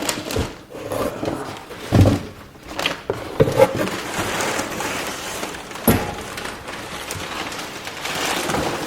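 Packing paper rustling and crinkling while a windscreen is handled in its box, with a few sharp knocks and thuds, the loudest about two seconds in and just before six seconds.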